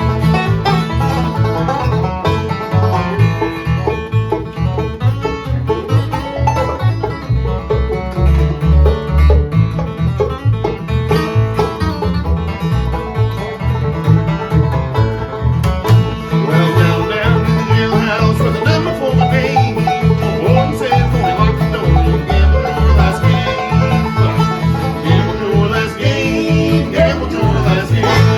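Live acoustic bluegrass band playing an instrumental break with no singing: rolling banjo picking over guitar and a steady bouncing bass line. The high picking grows busier from about halfway through.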